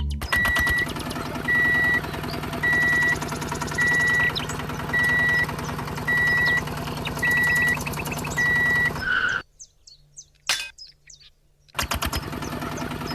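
Small electric motor of a DIY mini tractor running with a fast clatter and steady hum, while a high beep sounds about once a second. The motor cuts out about nine seconds in for roughly two seconds, leaving bird chirps, then starts again with its beeping.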